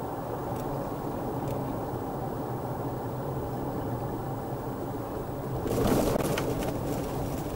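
Steady engine and tyre noise heard from inside a moving car. About six seconds in, an oncoming vehicle passes with a brief rushing swell.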